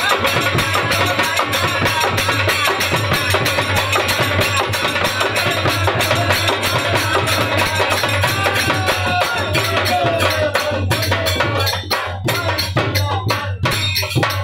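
Holi folk song played by a small group on dholak and harmonium, with sharp percussive strikes at about five a second and voices singing. The music thins out and breaks up near the end.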